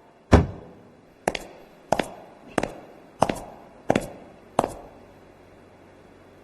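Seven sharp knocks at an even pace, about one every two-thirds of a second, the first the loudest.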